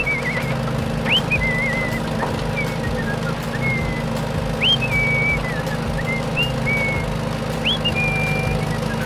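Repeated whistled chirps, each a quick upward swoop that settles into a short held note, coming about every second or so over a steady low hum.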